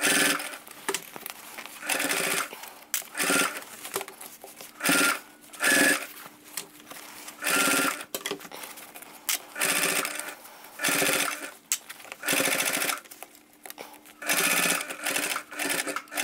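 Sewing machine stitching in about ten short stop-start runs with pauses between, working slowly through thick layers of denim and piping.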